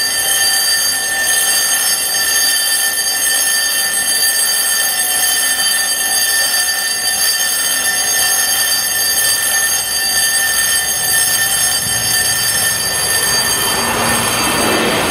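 Level-crossing electric bell (Rassler) ringing continuously as a warning that a train is due. Near the end the running noise of an approaching diesel railcar rises under it.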